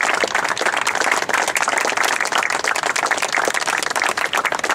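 A small crowd applauding, with many hands clapping in a dense, steady patter.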